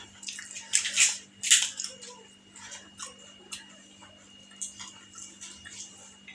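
Eating sounds: a few short crunches and mouth clicks from biting and chewing crisp phuchka shells, about one or two a second at first, then sparser.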